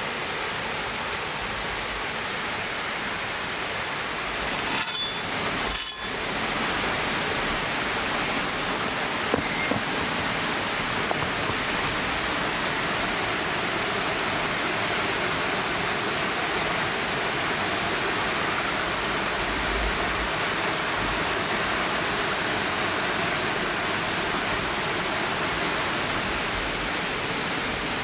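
Steady rushing noise of flowing water, broken by two brief dips about five and six seconds in, with a few faint ticks a little later.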